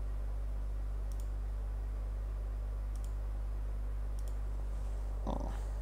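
A computer mouse clicking a few times, with single sharp clicks spaced about a second or more apart, over a steady low electrical hum.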